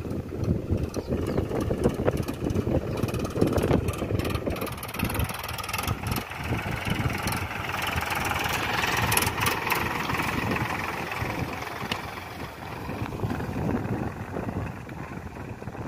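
Powertrac Euro 50 tractor's three-cylinder diesel engine running steadily as the tractor drives past, towing a cultivator, loudest about halfway through as it passes closest.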